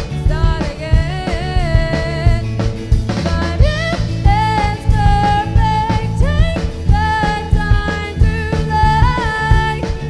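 Indie pop band playing a song live: a drum kit beat and bass under a melody line that slides up into long held notes.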